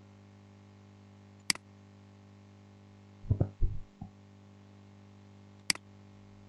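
Two sharp computer mouse clicks about four seconds apart, with a short cluster of low thuds between them, over a steady low electrical hum.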